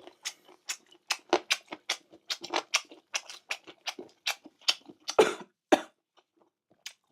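Close-up wet chewing and lip-smacking of someone eating boneless chicken feet: quick sticky clicks, about three or four a second, thinning out after about five seconds.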